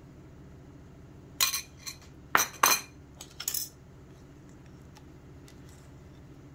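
A spoon clinking and scraping against a ceramic bowl as soap paste is scooped out: a quick run of about six short clinks and scrapes in the first half, then only faint ticks.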